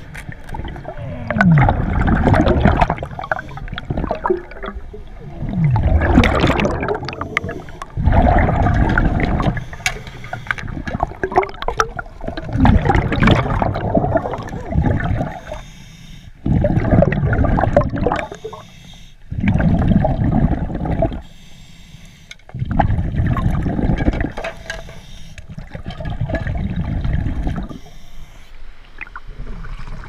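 Scuba diver breathing through a regulator, heard underwater: a burst of exhaled bubbles gurgling every two to four seconds, with quieter gaps between.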